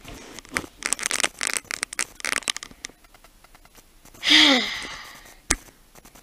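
Rustling and handling noises, like a cloth or paper being moved about, for about three seconds, then a loud short vocal exclamation that falls in pitch, like a groaning "ohh", and a single sharp click near the end.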